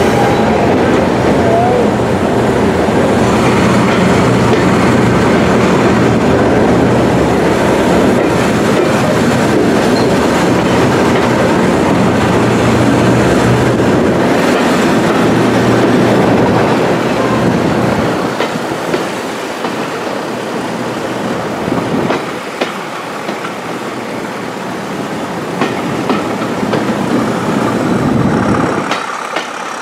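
Preserved British Rail diesel locomotive running loud and steady as its train passes. The engine fades about seventeen seconds in, leaving quieter train noise with a few sharp clicks.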